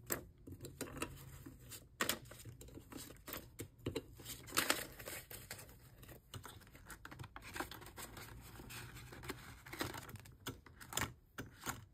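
Paper banknotes rustling and crinkling as they are handled and slipped into clear plastic envelopes in a ring binder, with pages being turned. It makes irregular soft crackles and ticks.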